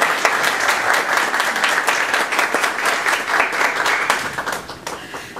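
Audience applauding, a dense patter of many hands clapping that thins out and dies away in the last second.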